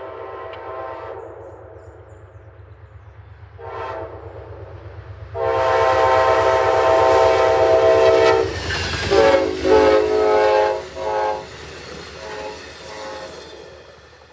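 Amtrak locomotive 104's multi-chime air horn playing a horn show: a blast that trails off about a second in, a short blast, a long loud blast, then a quick run of short toots and a couple of brief ones near the end. The train's low rumble runs underneath.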